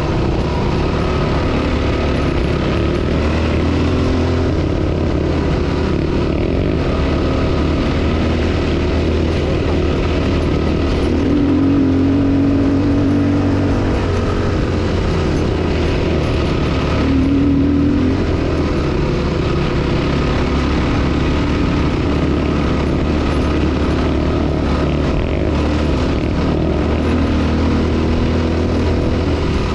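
Four-stroke dirt bike engine running as the bike rides along a dirt track. The engine note rises and gets louder for a few seconds about twelve seconds in, and again briefly about eighteen seconds in.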